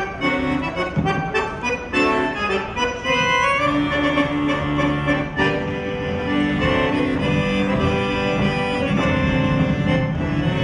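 Polish folk dance music, played with quick runs of notes for a dancing ensemble.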